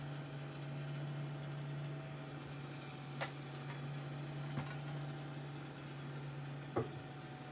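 Microwave oven running with a steady hum. A few faint clicks come over it about three, four and a half and seven seconds in.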